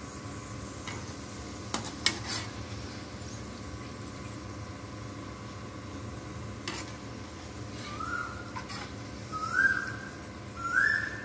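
Slotted steel spoon clinking a few times against the wok and bowl as fried onions are scooped out, over a steady low hiss. From about eight seconds in, a whistled call repeats three times about a second and a half apart, each note gliding upward and a little higher than the one before.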